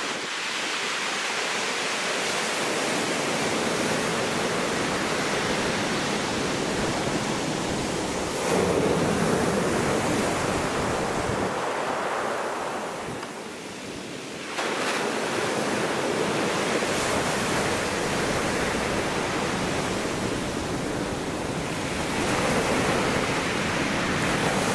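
Sea surf washing onto the shore, a continuous rushing noise that swells about a third of the way in, eases into a brief lull past the middle, and builds again near the end.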